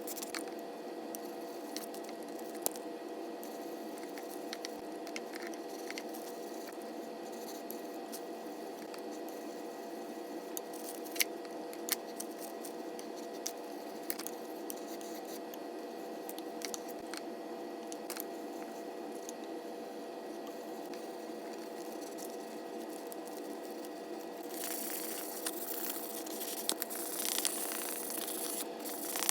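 Furniture repair work sped up fourfold: a steady hum under scattered small clicks and taps, with a louder hissing noise for the last few seconds.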